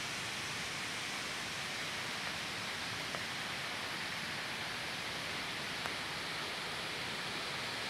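Steady rushing hiss of water from a rain-swollen river in flood.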